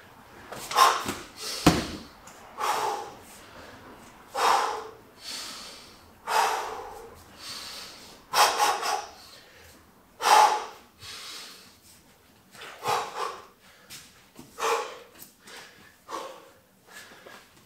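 A man's heavy, forceful breathing from exertion: short hard exhales about every two seconds. A single dull thump about two seconds in.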